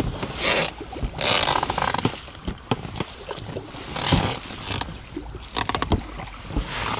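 Gear being handled in a small boat: a few irregular scrapes and rustles with scattered knocks and clicks.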